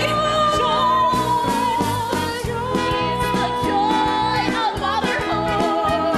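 Young performers singing a musical-theatre song over instrumental accompaniment, with a long high note held with vibrato for about three seconds.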